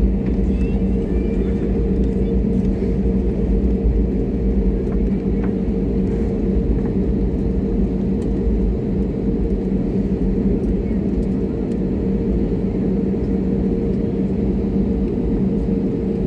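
Airliner cabin noise while taxiing after landing: the jet engines' steady rumble with two constant low hums, heard from inside the cabin.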